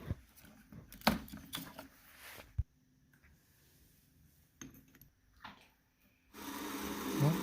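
A few wooden knocks and handling clicks, then about six seconds in a power drill starts up and runs steadily, boring a tap hole into a maple tree.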